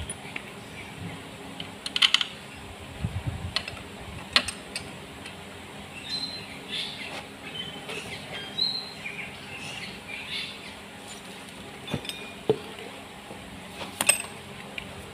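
Scattered metal clinks and taps of bolts and hand tools being handled against a stripped Perkins four-cylinder diesel engine block, with the sharpest knocks about two seconds in, around four seconds, and twice near the end.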